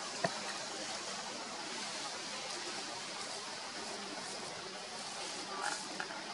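A steady hissing background noise, with one sharp click just after the start and a few faint short sounds near the end.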